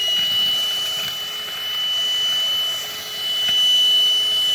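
VANATIEN handheld vacuum's motor running on its low eco setting with a steady high whine and rushing air, swelling and easing as the nozzle is worked over carpet. There is a sharp tick about three and a half seconds in as debris is sucked up.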